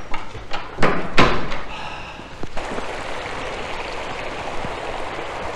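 Two heavy thumps close together about a second in. Then, from about halfway, a shallow stream running steadily over rocks.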